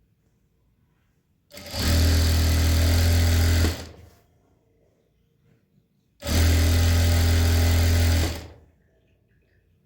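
Electric sewing machine stitching in two runs of about two seconds each, starting and stopping abruptly with a steady hum, with a pause of a couple of seconds between them.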